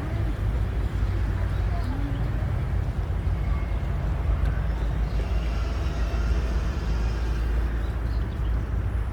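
Outdoor ambience: a steady low rumble with faint distant voices.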